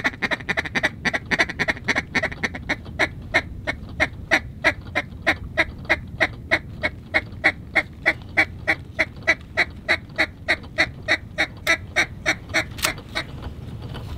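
Mallard duck call blown in a long, even run of quacks: close-set for the first few seconds, then about three a second, stopping shortly before the end.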